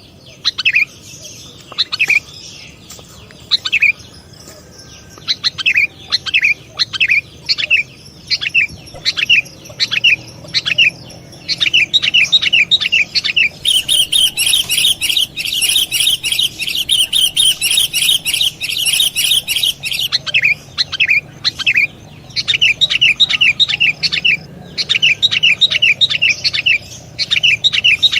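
Sooty-headed bulbul calling: runs of short, sharp chirps that each fall in pitch. A louder, denser stretch of rapid chirping comes in the middle.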